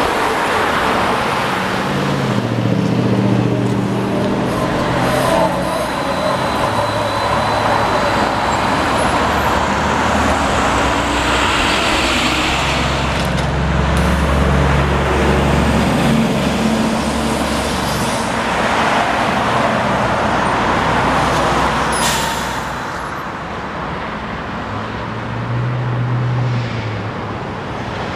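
Road traffic: motor vehicles passing on a city street, engine hum swelling and fading several times over a steady tyre-and-traffic noise.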